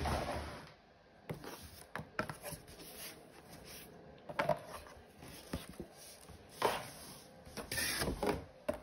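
A large cardboard box and its packing being handled: scattered rustles, scrapes and light knocks, loudest about halfway through and again near the end.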